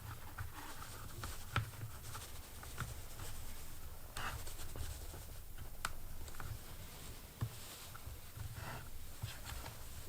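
Rubber grommets being worked by hand into a plastic headlight housing: scattered scratching and rubbing, with a few sharp clicks.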